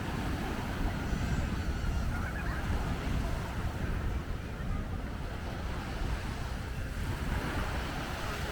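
Surf washing onto the beach in a steady noisy wash, with wind rumbling on the microphone.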